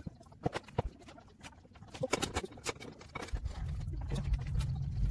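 New front brake pads being handled and seated into the caliper carrier beside the brake disc: a series of short clicks and clacks. About three seconds in, a steady low hum comes in and grows louder.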